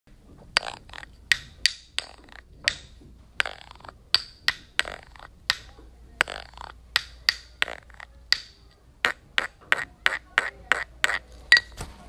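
A run of sharp, separate clicks or taps, irregular at about two or three a second, over a steady low hum.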